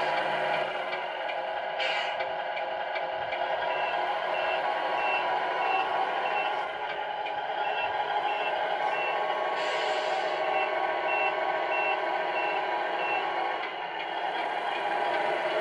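Tamiya Scania R470 RC truck's onboard sound unit playing a simulated diesel engine running steadily, with a reversing beeper sounding about twice a second for several seconds in the middle, the sign that reverse is engaged. A few short hisses come near the start and again around the middle.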